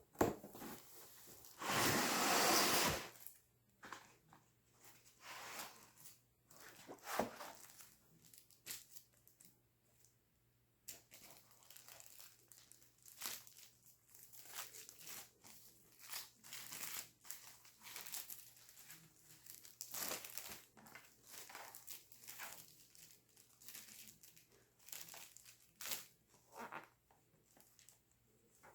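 Laptop packaging being handled during unboxing: crinkling and rustling of wrapping, with a louder tearing noise lasting about a second and a half near the start, then a run of short rustles and light clicks.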